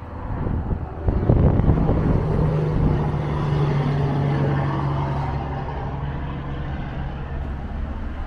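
Highway traffic: a heavy truck going by with a steady low engine drone and tyre rush, swelling about a second in and then slowly fading.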